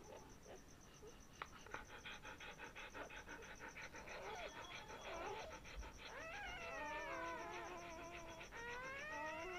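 Newborn German Shepherd puppies crying with thin, high-pitched squeals, several at once, the calls gliding up and down and growing louder in the second half.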